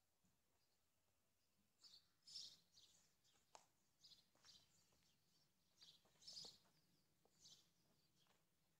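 Near silence, with faint short high-pitched sounds coming irregularly from about two seconds in, roughly one or two a second.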